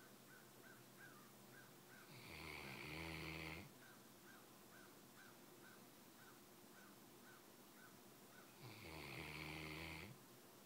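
Sleeping mastiff snoring: two long rumbling snores, each about a second and a half, about six seconds apart.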